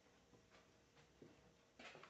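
Near silence with a few faint clicks, then a louder brief rustling or knocking noise near the end.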